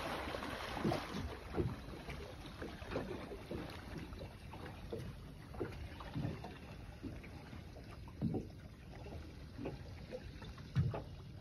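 Small waves lapping and slapping against the hull of a stationary boat, in short irregular slaps, with wind on the microphone in the first second or so.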